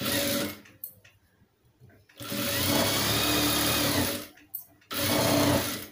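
Jack industrial single-needle sewing machine stitching in three short runs: a brief one at the start, a longer two-second run from about two seconds in, and another brief one near the end. The machine stops between runs while the fabric is repositioned.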